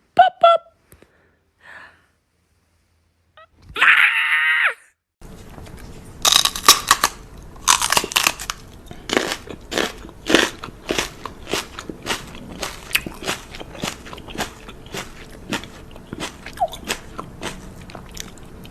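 Crunchy chewing on something crisp: irregular crunching bites, one or two a second, starting about five seconds in. Before it, a short pitched sound at the start and a brief falling pitched whine about four seconds in.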